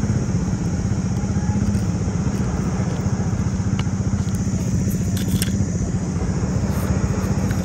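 Steady, even engine-like rumble with a fast low pulsing, like a motor idling, with a few faint clicks over it.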